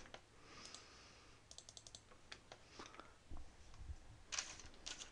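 Faint scattered clicks from operating a point-of-sale computer, with a quick run of several clicks about one and a half seconds in and a few louder ones near the end.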